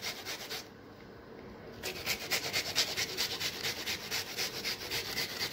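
Red onion being grated on a flat stainless-steel hand grater: rapid rasping strokes, with a short pause about a second in before the strokes pick up again.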